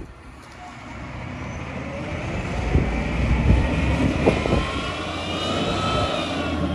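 GFL front-loader garbage truck's engine pulling away and speeding up, growing louder over the first few seconds, with a few clunks and a whine that rises and then falls near the end.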